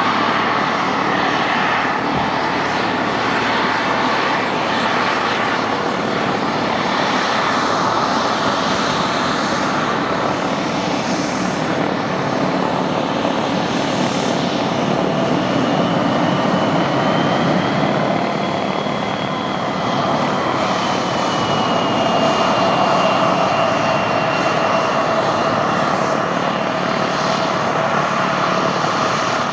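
Turbofan engines of an Endeavor Air regional jet running at taxi power: a steady jet noise, with a thin high whine that rises slightly and then eases back down around the middle.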